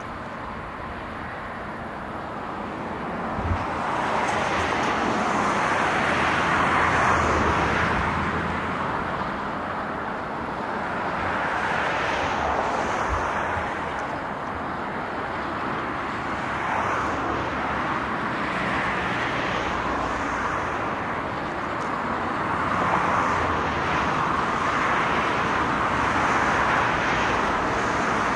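Steady rushing vehicle noise that swells and fades every few seconds, with a couple of dull thumps, as a freight train of tank wagons rolls slowly through a rail yard behind an electric locomotive.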